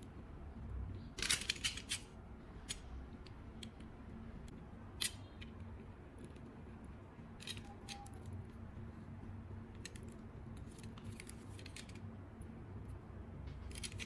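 Sharp snips and clicks of a small hand tool: a quick cluster of several about a second in, then single ones or short groups every couple of seconds. A faint steady hum sits underneath.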